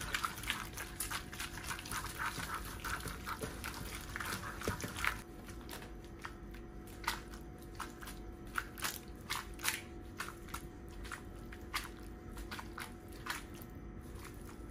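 Spaghetti in egg sauce being stirred and tossed in a nonstick frying pan with a wooden spoon: wet squelching and scraping, busiest for the first five seconds, then scattered clicks and knocks as the pan is shaken. A faint steady hum runs underneath.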